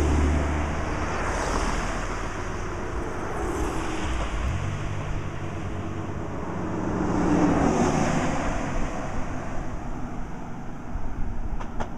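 Road traffic: cars driving up the road, their tyre and engine noise swelling and fading several times, over a low rumble of wind on the microphone.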